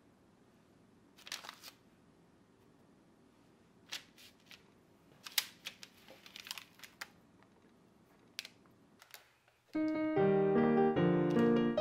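Short, scattered rustles and light ticks of parchment paper being handled, over faint room noise. Piano music starts about ten seconds in and is the loudest sound.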